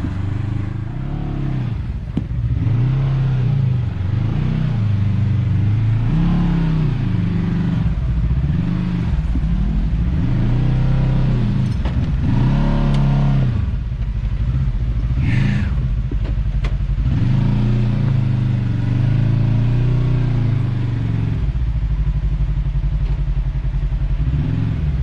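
Side-by-side UTV engine under repeated throttle while rock crawling, its revs climbing and dropping again every second or two. A brief high squeal cuts in about two-thirds of the way through.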